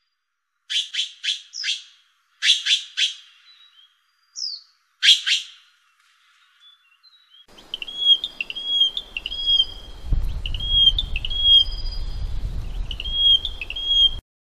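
Formosan magpie giving harsh, rasping calls in quick runs of four and three, then one more. After a short gap, a Taiwan bush-warbler sings its telegraph-like song: short, hooked notes repeated in a steady rhythm, over a low rumble of background noise that cuts off near the end.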